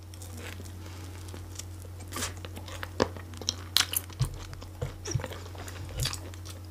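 Close-miked chewing and wet mouth sounds: irregular smacks and clicks of someone eating a sprat sandwich on soggy bread, over a steady low electrical hum.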